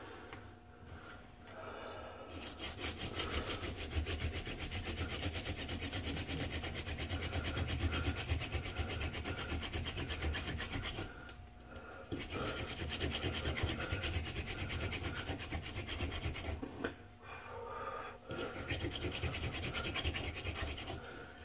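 Hand-drill friction fire: a mule's tail (horseweed) stalk spindle spun back and forth between the palms, grinding into a cedar hearth board with a fast, steady rubbing rasp. It breaks off briefly twice, about halfway through and again near three-quarters of the way.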